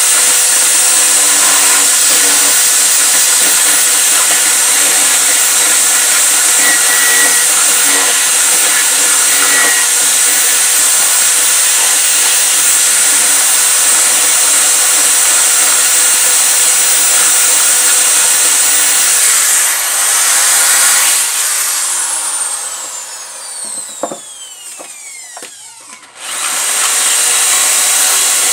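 Corded electric drill running at steady high speed while boring into a wooden board. About 21 seconds in the trigger is released and the motor winds down with a falling whine, then near the end it starts up again at full speed.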